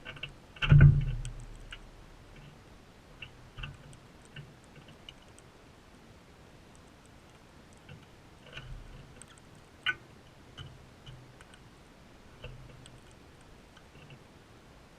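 Crimson rosellas feeding close to the microphone: scattered clicks and taps of beaks on seed and the feeder. One heavy knock about a second in is the loudest sound.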